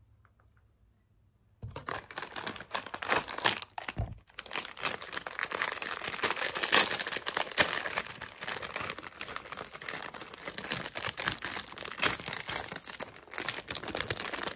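Plastic snack packaging crinkling and tearing as it is opened and handled, starting about two seconds in, with a soft thump about four seconds in.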